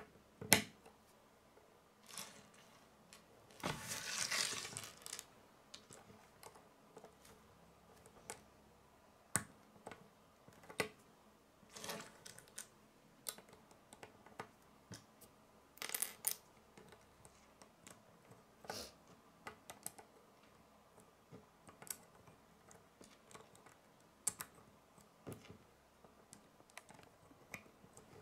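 Small plastic Lego bricks being handled and pressed together: irregular sharp clicks and snaps, with a longer rattle of pieces about four seconds in.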